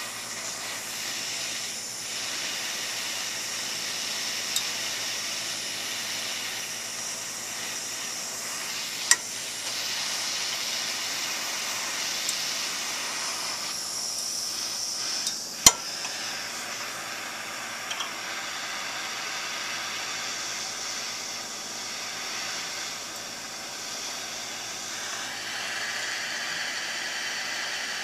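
Handheld gas torch flame hissing steadily as it heats a motorcycle suspension linkage rocker to loosen seized press-fit bearings. Two sharp clicks cut through it, the louder about sixteen seconds in.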